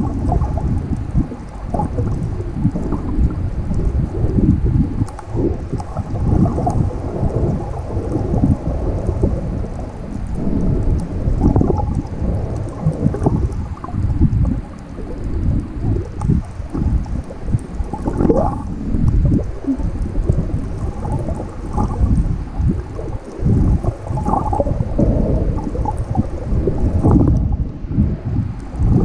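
Water rumbling and gurgling as heard through a GoPro's underwater housing: a muffled, uneven low rumble that keeps surging and easing as choppy waves push the camera around.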